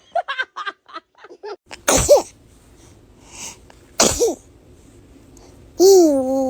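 A baby sneezing twice, about two seconds apart, each a sharp burst. Short breathy voice sounds come before the sneezes, and a drawn-out voice sound begins near the end.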